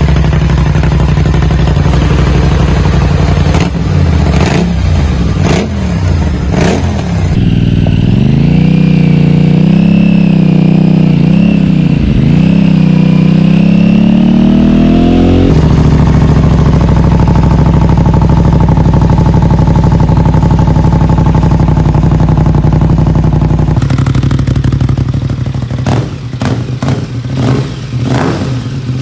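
Aprilia RS 660 parallel-twin engine through aftermarket exhausts, loud throughout. For the first seven seconds the Arrow system is blipped in sharp revs. Then comes riding, the pitch rising and dropping through the gears, then a steady high-rev drone. Near the end the SC Project system is revved in quick stabs.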